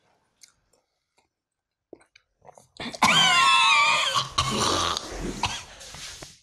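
A man's loud, strained cough-like vocal outburst with a wavering pitch, starting abruptly about three seconds in and trailing off.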